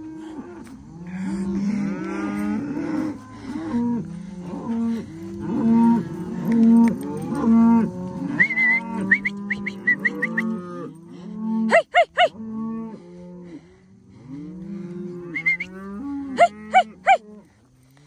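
A herd of beef cows and calves mooing, many drawn-out calls overlapping one another. A few short, sharp, higher calls cut in around the middle and again near the end.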